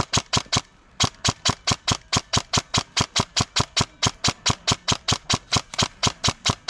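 Airsoft gun firing on full auto, a steady string of sharp cracks at about seven shots a second, with one brief break just under a second in.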